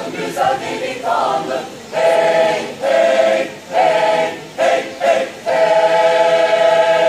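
Mixed polyphonic choir singing a cappella in short, separated phrases, then holding one long final chord near the end.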